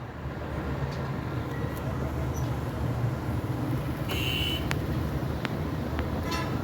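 Car engine running at a steady idle, with one short high-pitched tone about four seconds in.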